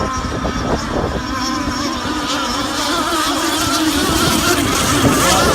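Several radio-controlled racing boats running on the water, their high-revving engines whining together with pitches that waver up and down as they race.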